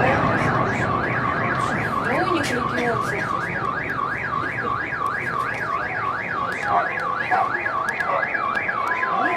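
Car alarm sounding a fast up-and-down warble, about three to four sweeps a second, with faint scattered pops behind it.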